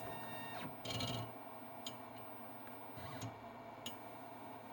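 Optician's frame tracer starting a scan cycle: a brief high tone at the start, a short burst of mechanical noise about a second in, then a few faint clicks as its motors move the mechanism.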